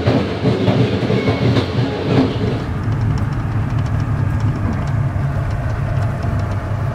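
Passenger train carriage running along the track, heard from inside the carriage: a steady low rumble with faint wheel clicks. The higher hiss drops away about three seconds in.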